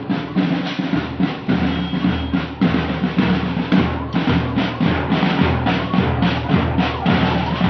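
Music led by a marching drum beat: even, repeated drum strikes over a sustained low melody.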